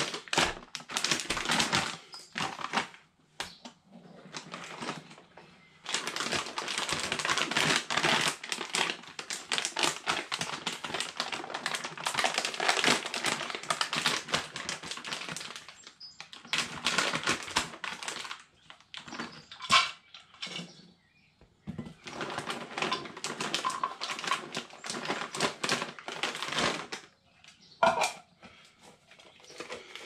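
Dry Frolic dog-food kibble rattling and clattering in long bursts of fast little clicks, as it is scooped from its bag and poured into a plastic bucket of pellet groundbait.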